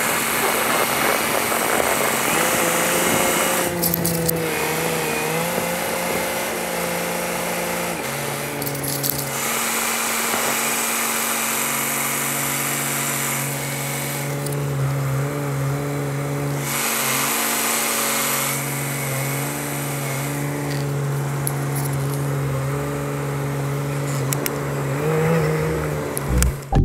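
Plow truck's engine running steadily, its pitch wavering slightly, with a broad hiss that swells and fades every few seconds.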